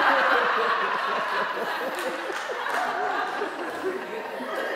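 An audience laughing, many voices together, loudest at the start and slowly dying down.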